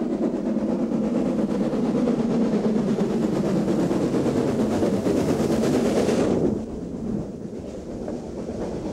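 S15 class 4-6-0 steam locomotive No. 30506 at work, its exhaust beating as it draws close and passes below. The sound drops away sharply about six and a half seconds in, once the engine has gone by, leaving the quieter run of the coaches rolling past.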